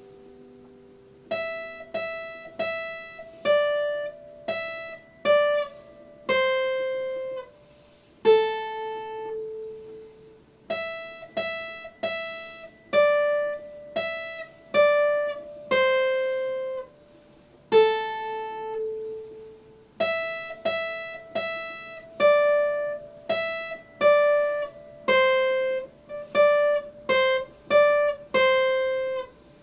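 Epiphone acoustic guitar playing a slow single-note melody, each plucked note left to ring, in phrases with short pauses between them. The melody starts about a second in.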